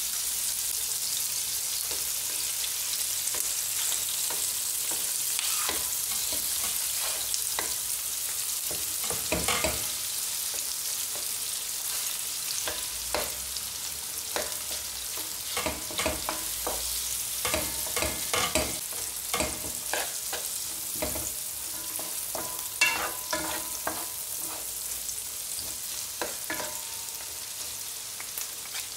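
Onion, garlic and halved salted eggs sizzling steadily in oil in a nonstick wok. From about a third of the way in, two wooden spatulas tap and scrape against the pan in quick clusters as the eggs are broken up and stirred.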